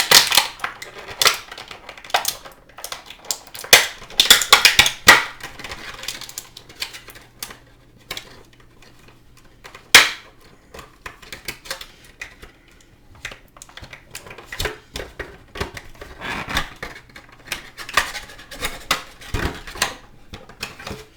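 Plastic action-figure packaging being handled and pulled apart as a figure is worked free: irregular clicks, crinkles and rattles, busiest about four to five seconds in, with one sharp click around ten seconds.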